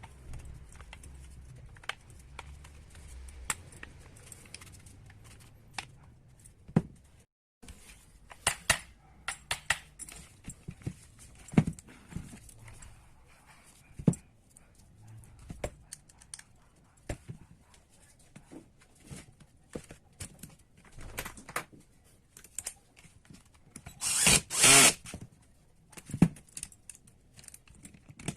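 Small metal parts and hand tools being handled during the disassembly of a DeWalt angle grinder: scattered clicks, taps and light knocks. A louder noisy burst about a second long comes near the end.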